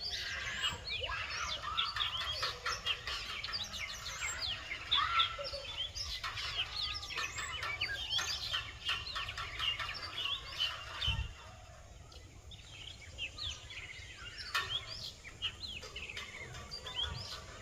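Many small birds chirping and twittering at once, a dense chorus of short, quick chirps that thins out and gets quieter about eleven seconds in.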